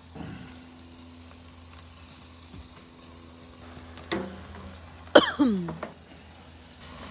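Steaks sizzling on a charcoal grill grate while barbecue sauce is brushed on and tongs work the meat. About five seconds in comes the loudest sound, short and sliding down in pitch.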